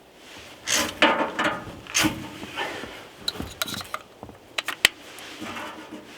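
Handling noises: irregular rubbing and scraping strokes with several sharp clicks, the sharpest about two thirds of the way through.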